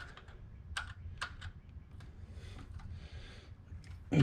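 A few light clicks and taps of hand tools against car engine parts, followed by a soft scraping about halfway through, as a fitting is worked and tightened.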